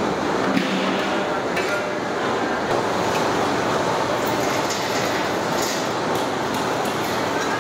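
Steady rushing background noise of a busy wood-fire cooking area, with a few light metal clinks of ladles against large cooking pots.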